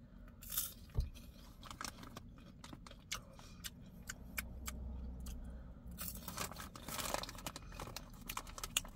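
Popcorn being chewed and handled: scattered small crunches and crackles, with a soft thump about a second in and a short rustle around six to seven seconds in.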